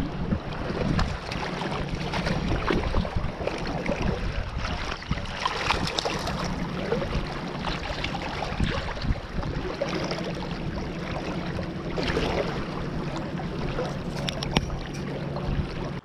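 Shallow creek water running and splashing close to the microphone, with scattered sharp splashes as a brown trout is lifted and handled at the surface.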